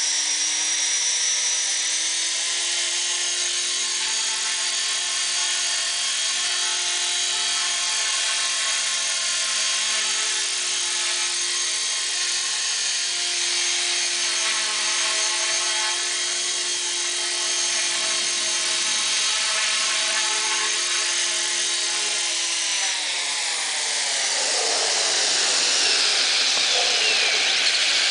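450-size electric RC helicopter with a five-blade flybarless main rotor: a steady motor-and-gear whine with rotor-blade buzz as it hovers. A little over 20 seconds in the whine slides down in pitch, and near the end the rotor noise gets louder and more rushing as it comes close.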